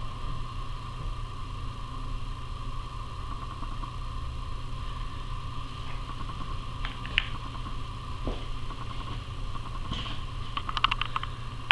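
Steady mechanical hum, like a fan or motor running in a small room, with a couple of light clicks about seven seconds in and a quick run of small ticks near the end.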